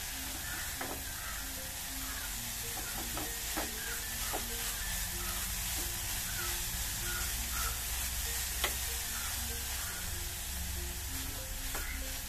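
Silicone spatula stirring and scraping a coconut, cashew, raisin and egg filling around a nonstick pan, with a steady sizzle from the hot pan and soft scrapes and clicks now and then. The flame under the pan has just been turned off.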